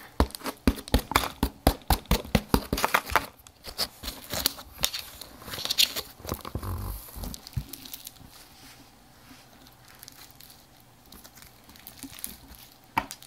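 Slime mixed with bingsu beads being squeezed and stretched by hand close to the microphone, giving rapid crackling and popping. The crackles thin out after about seven seconds to quieter handling.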